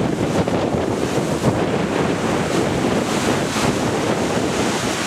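Strong gusty wind buffeting the microphone, rumbling and fluttering unevenly, over the noise of rough, wind-driven waves.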